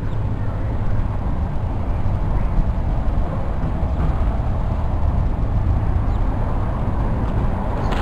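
Outdoor background noise: a loud, even low rumble with a faint hiss above it.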